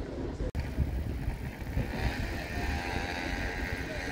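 Outdoor ambience with a steady low rumble, broken by a brief dropout about half a second in.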